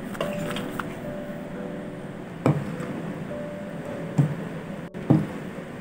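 A spoon and a spatula knocking and scraping against a plate while seasoned flour is mixed into raw chicken pieces, with three sharper knocks in the second half. Faint steady background tones run underneath.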